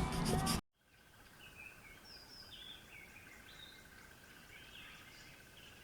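Faint outdoor birdsong: scattered short chirps and whistled notes over a steady, high, faintly pulsing trill. It comes in after an abrupt cut from louder street sound in the first half second.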